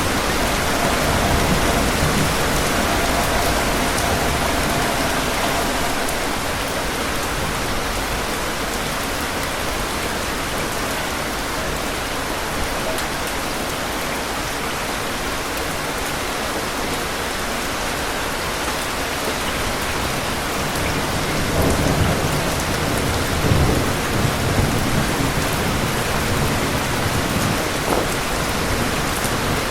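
Steady rain with rolling thunder. The thunder rumbles in the first few seconds and again, louder, a little past the middle, with several sharp peaks in the rumble.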